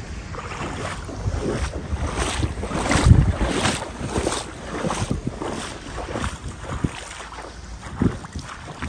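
Footsteps wading through shallow floodwater, a slosh and splash with each step in a steady walking rhythm, with wind buffeting the microphone.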